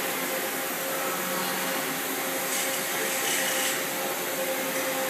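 CNC turret lathe running with its spindle turning: a steady whir with a constant tone.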